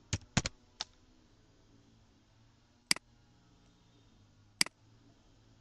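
Computer mouse clicks in a quiet room: a few quick clicks in the first second, then two single clicks about three seconds and four and a half seconds in, over a faint low hum.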